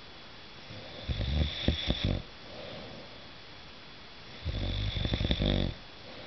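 A sleeper snoring: two loud, low, rattling snores, each about a second long, the second beginning about four and a half seconds in, with quiet breathing between them.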